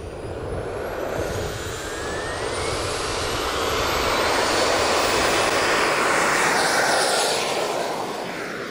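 Large-scale radio-controlled Pilatus PC-21 model aircraft flying past with a turbine-like whine. The whine rises in pitch as the plane approaches, is loudest about six to seven seconds in, then drops in pitch and fades as the plane passes away.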